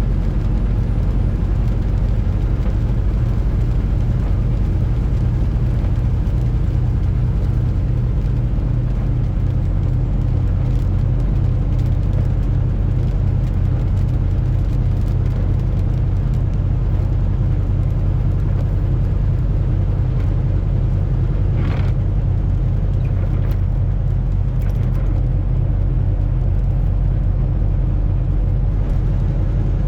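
Semi-truck diesel engine droning steadily on the move, heard from inside the cab, over a steady road noise. A brief sharper sound rises above it about two-thirds of the way in.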